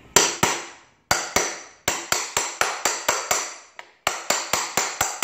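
A hammer striking a steel socket held against a new wheel bearing in a motorcycle wheel hub, driving the bearing home into its bore. Sharp ringing metallic taps: two at the start, then runs of quick taps about four a second with short pauses between runs.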